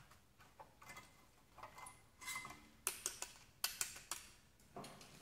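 Screwdriver tips clicking and scraping on the metal of a rear brake caliper and its pad spring clips as they are pried off by hand: a string of small, sharp metal clicks and taps, thickest in the middle, with a louder clank at the very end.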